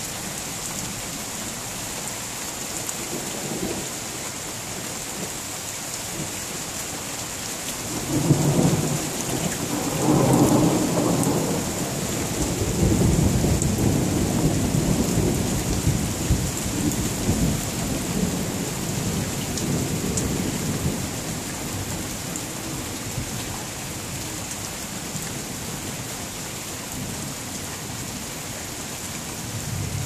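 Steady rain falling, with a long roll of thunder that breaks in about eight seconds in, swells twice, and rumbles on for more than ten seconds before fading back under the rain.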